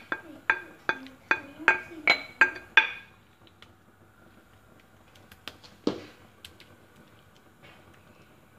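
A utensil clinking against a bowl in quick regular strokes, about two to three a second, as the quiche filling is scraped out. The clinking stops about three seconds in, and there is one more knock near six seconds.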